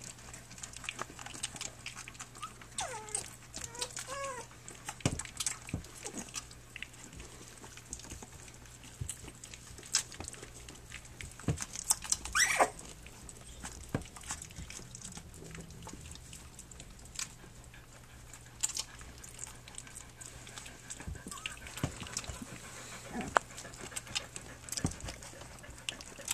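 Three-week-old Standard Schnauzer puppies nursing: scattered little clicks and smacks, with a few short whines a few seconds in and one sharp rising squeak about halfway through.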